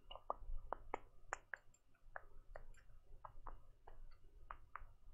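Faint, irregular clicking of a computer mouse, about three or four clicks a second, as a web page is scrolled and browsed.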